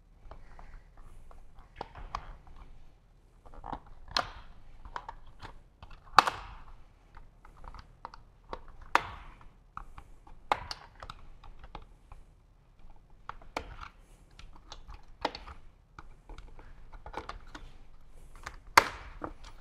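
A small screwdriver prying the fasteners and plastic wire cover loose from a motorcycle frame: irregular sharp plastic clicks and snaps, a louder one every couple of seconds, with lighter ticking and rattling in between.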